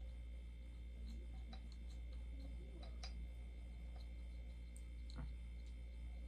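Faint, scattered light clicks and taps from a bobblehead and its base being handled, over a steady low hum.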